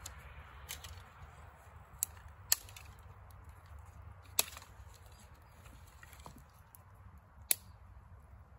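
Dry wooden branches snapping as they are broken by hand for firewood: five sharp, irregular cracks a second or more apart, the loudest near the middle and near the end.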